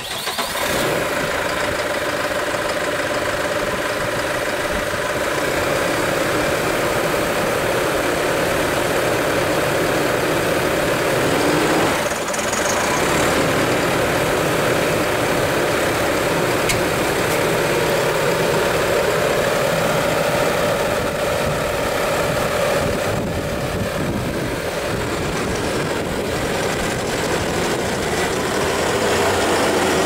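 New Holland tractor's diesel engine running steadily while the tractor stands still, with a brief rise and fall in pitch about twelve seconds in.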